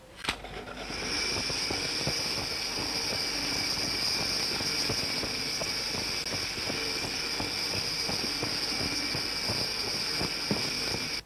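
Toy electric train running on its track: a click as it starts, then a steady high motor whine with a patter of many small clicks, cutting off suddenly near the end.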